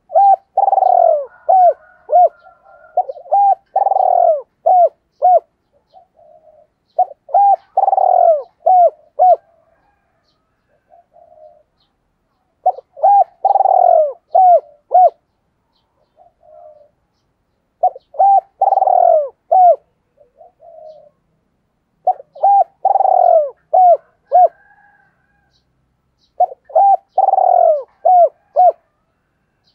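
Spotted dove cooing: seven loud phrases, one about every four to five seconds, each a longer coo followed by several short clipped notes, with soft low coos in the gaps between phrases.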